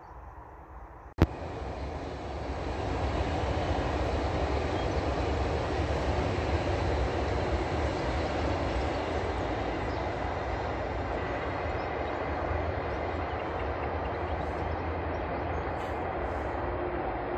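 Passenger train running along the line: a steady rumble of wheels on track that swells over the first few seconds and eases slightly as it draws away. A sharp click about a second in.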